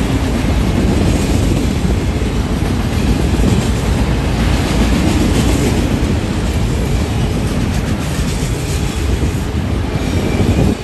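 BNSF manifest freight train rolling past, its wheels making a loud, steady rumble on the rails with clickety-clack from the cars.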